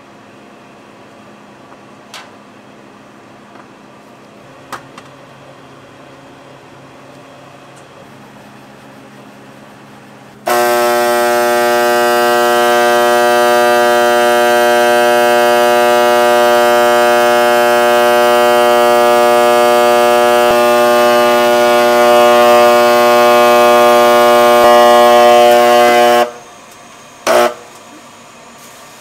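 A loud, steady electrical buzzing hum that starts suddenly about ten seconds in, holds unchanged and cuts off about sixteen seconds later, followed by one brief burst of the same buzz. Before it, only a few faint clicks.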